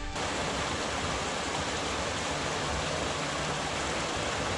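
Small mountain creek running over rocks: a steady rush of water that begins suddenly right at the start.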